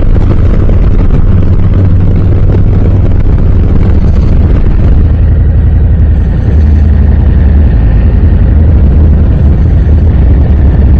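Harley-Davidson Low Rider S's Milwaukee-Eight 117 V-twin running loud through Cobra RPT slip-on mufflers as the bike is ridden, a steady deep engine note that drops a little about six seconds in.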